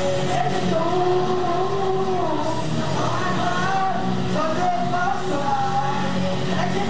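Karaoke backing music played loud over the room's speakers, with a man singing the melody into a microphone.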